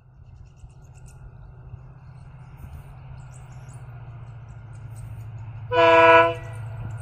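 Indian Railways diesel locomotive engine running, its steady low drone growing louder as it approaches, with one short horn blast about six seconds in.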